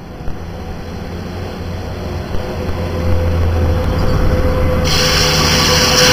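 Intercity through train of passenger coaches running along an elevated track, its rumble growing steadily louder as it approaches, with a steady mid-pitched whine over it. About five seconds in, a loud hiss of wheel-on-rail noise joins in.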